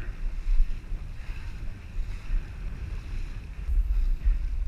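Wind buffeting the microphone: a gusting low rumble with a faint hiss above it.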